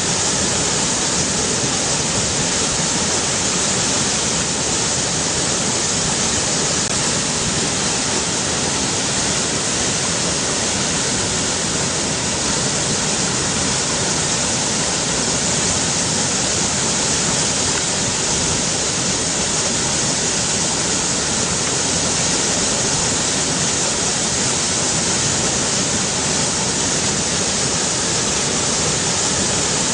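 Rushing river water: a steady, even rush with no breaks or changes.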